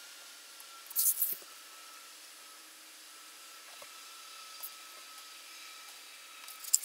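Hobby knife blade slicing through a paper pattern against a cutting mat. There is one loud, scratchy burst of cutting about a second in, then faint scrapes and a sharp tick near the end.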